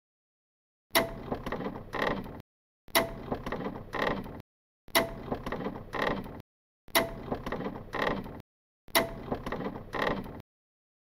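A mechanical sound effect repeated five times, two seconds apart: each time a sharp click followed by about a second and a half of ratcheting, gear-like clatter, then silence.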